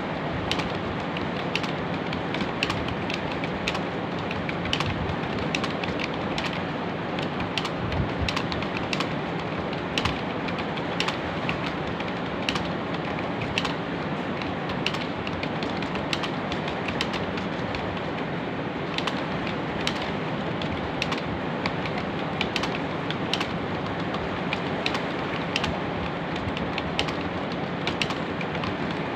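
Computer keyboard being typed on: short, irregular key clicks, one to three a second, over a steady background hiss.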